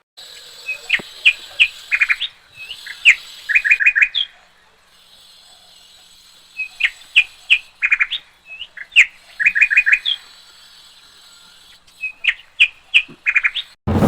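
Small birds chirping: runs of short, high chirps and quick trills, with the same sequence of calls repeating about every six seconds.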